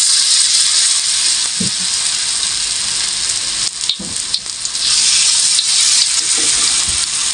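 Cabbage-and-carrot fritter batter frying in hot oil in a metal wok: a steady, loud sizzle. A few soft knocks of the spatula come through it as more batter is spooned in.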